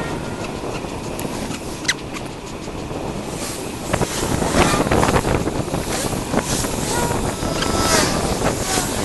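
Wind buffeting the microphone of a camera on a moving recumbent bicycle, with road noise and scattered sharp clicks and rattles. The noise grows rougher about halfway through.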